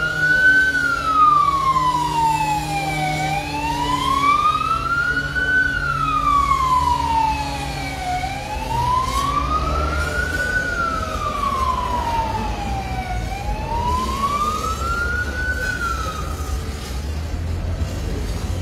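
Emergency vehicle siren in a slow wail, rising and falling about every five seconds, over a vehicle engine running; the siren stops near the end.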